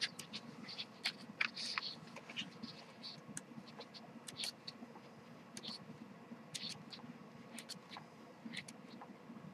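Pages of a small glossy CD photo booklet being turned by hand: faint, irregular paper flicks and rustles, some coming in quick clusters.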